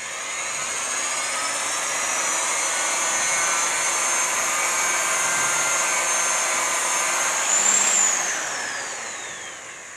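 Variable-speed grinder running a wet 3000-grit diamond polishing pad over marble: a motor whine with a steady wet grinding hiss. The whine rises as the grinder spins up, briefly climbs again near the end, then falls away as the motor winds down.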